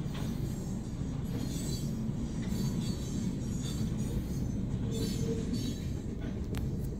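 Freight train of tank cars and flatcars rolling past a level crossing: a steady low rumble of wheels on rail with intermittent higher screeching and a sharp click near the end, heard from inside a car.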